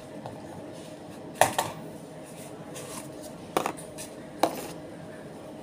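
Thin plastic food containers clacking as they are pulled from a stack and handled at a counter: a few sharp knocks, the loudest about a second and a half in, over a steady low hum.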